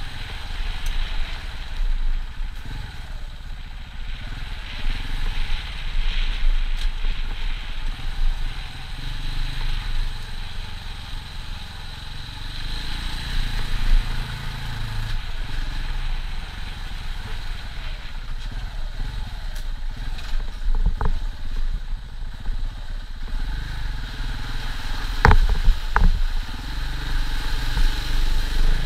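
KTM 690 single-cylinder dual-sport motorcycle engine running as it is ridden along a rough dirt trail, with a few sharp knocks from the bike over the ground about three-quarters of the way through.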